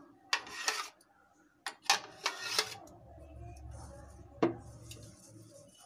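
Steel spoon scraping thick mango pulp out of a mixer jar and working it through a stainless steel mesh strainer: several short scrapes in the first three seconds, then a single sharp tap of metal about four and a half seconds in.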